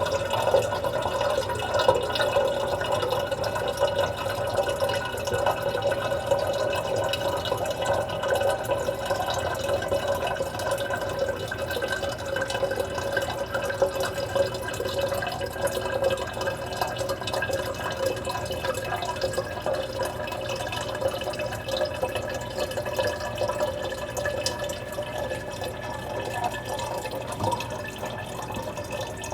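Filtered tap water running steadily from a faucet into a large plastic humidifier tank as it fills, with a faint tone that slowly rises in pitch.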